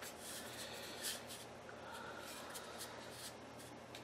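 Faint rustling and scraping of hard plastic parts being handled: a camera's mounting base turned against its junction box, with a light click about a second in.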